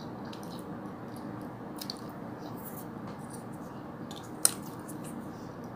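Eating sounds: faint chewing of flatbread and noodles, with a fork clicking sharply against the plate once about four and a half seconds in, over a steady low background hum.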